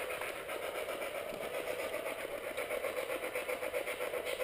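Spirit box sweeping through radio stations: a steady, rapid choppy static pulsing about six times a second.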